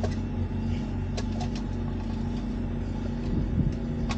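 Steady low engine drone from boatyard machinery as boats are washed and hauled out of the water, with several small plastic clicks as the lid of a small junction box is worked off.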